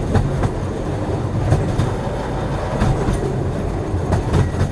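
Moving passenger train heard from inside the car: a steady low rumble, with pairs of sharp clicks about every second and a quarter as the wheels pass over rail joints.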